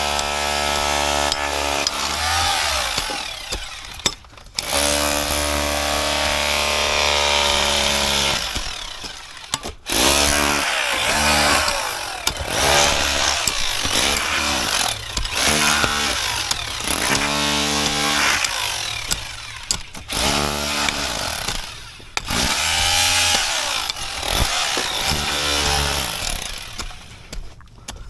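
Power tool running in repeated stretches, its motor pitch dropping and rising as it works, with short pauses between.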